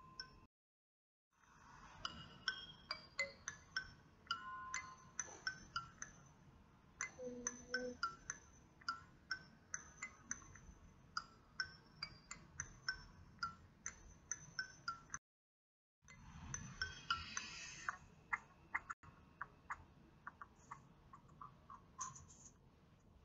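Quiet background music of quick, plinking bell-like notes, broken by two short dropouts to silence.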